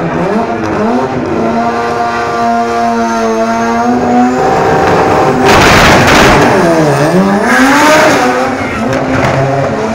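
Rotary-engined drag car revving hard and holding high revs. About halfway through comes a loud rush of tyre noise, and then the revs dip and climb again.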